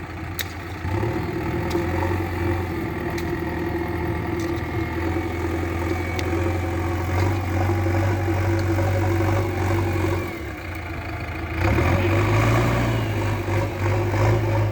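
A steady engine-like drone with a low hum, dipping briefly about ten seconds in and coming back louder.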